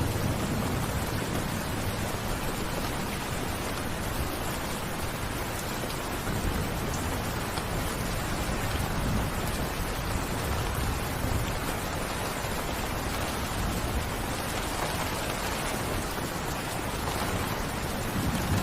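Steady rain falling as an even hiss, with a low, uneven rumble underneath.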